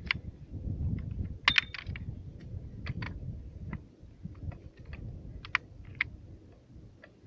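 Metal parts of a 14.5 mm anti-aircraft heavy machine gun clicking and clinking as they are handled and fitted together by hand. There are scattered sharp clicks, with a louder metallic clank that rings briefly about one and a half seconds in.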